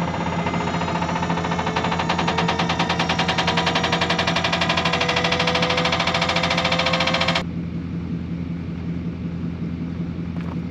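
Truck engine idling while the dump bed's hydraulic hoist runs, a fast pulsing drone with a slowly rising whine, raising the bed to tip a load of clay. The hoist cuts off suddenly about seven seconds in, leaving the engine idling.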